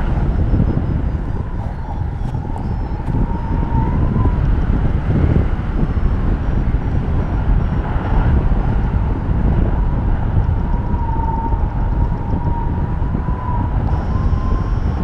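Airflow buffeting the camera microphone in paraglider flight: a steady low rushing, with a faint thin tone wavering slightly in pitch underneath.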